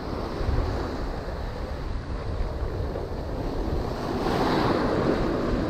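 Ocean surf breaking and washing up the sand close by, as a steady rush of water that swells as a wave breaks about four seconds in.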